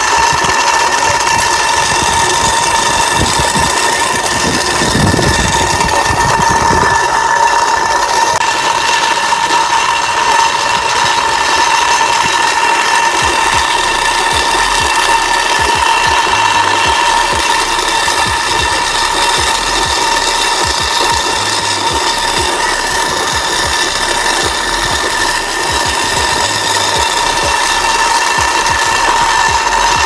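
Small battery-powered DC motor of a cardboard toy road roller running with a steady high whine, with irregular clicking and rattling as its milk-can roller and cardboard wheels roll over concrete.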